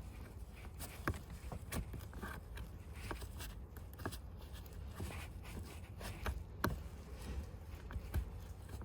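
Scattered light clicks and knocks of plastic trim being handled and pushed into place as a small footwell light is fitted back into its trim panel.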